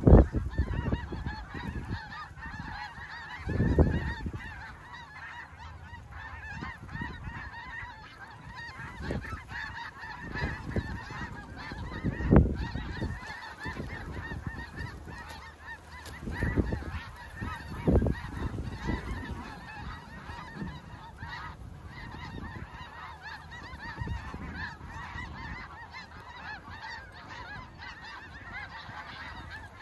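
A huge flock of snow geese calling overhead: a dense, steady din of overlapping high honks. Several loud low thumps break through it near the start and again about 4, 12 and 18 seconds in.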